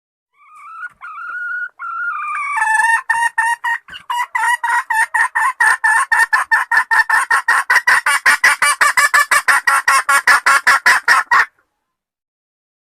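A hen calling: a few drawn-out, slightly rising calls, then a rapid, even run of loud clucks at about five a second that stops abruptly.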